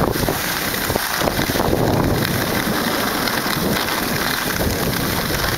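Skis hissing and scraping over packed snow while wind buffets the microphone of a body-worn camera during a downhill run. The sound is a loud, steady rushing noise with an uneven low rumble.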